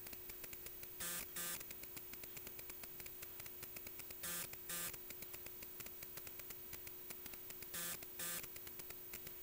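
Faint electronic hum from running bench test equipment: a steady single tone under a fine, constant static crackle. Three times, a pair of short bursts of hiss breaks in, about three and a half seconds apart.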